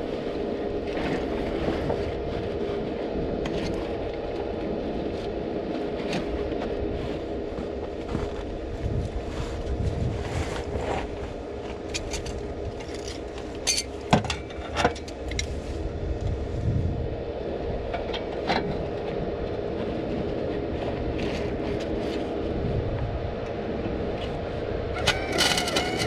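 Electric welder tack welding a sleeve into a broken exhaust pipe under a car, a steady crackling buzz with sharp clicks. Near the end a different, pitched sound comes in.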